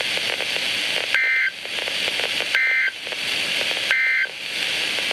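A weather radio plays three short, shrill two-tone data bursts of the Emergency Alert System (SAME) end-of-message code, about 1.4 seconds apart, with steady static hiss between them: the signal that the warning broadcast is over.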